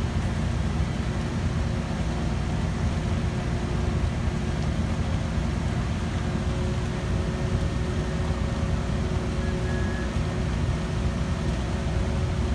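Heavy construction machinery engine running steadily: a low, even rumble with a faint steady whine over it.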